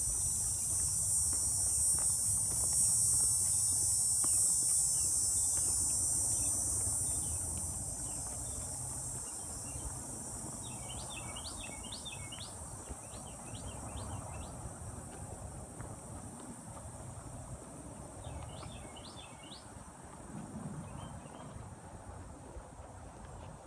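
Insects buzzing in a steady high-pitched drone that fades away after about seven seconds, while a bird calls in two short runs of quick rising chirps, midway and again near the end.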